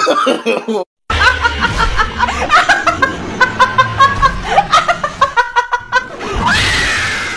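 A woman laughing hard in quick repeated bursts, over background music with a steady bass.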